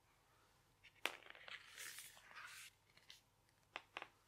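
Faint handling of a cardboard board book as its page is turned: a click, then about a second and a half of soft rustling and scraping, then a few small taps near the end.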